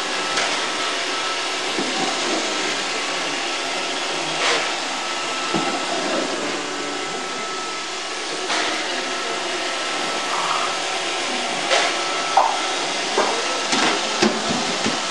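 iRobot Roomba 555 robot vacuum running steadily, a steady hiss with a thin whine, with several sharp knocks along the way that cluster near the end.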